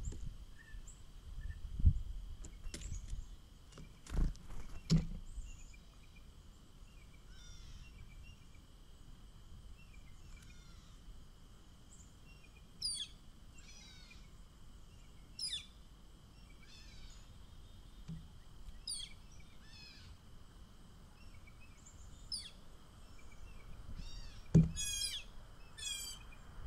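Small songbirds at a feeder giving short, high chirps that fall in pitch, one every second or two, with a quick run of notes near the end. A few dull thumps come near the start and one near the end, over a faint steady high tone.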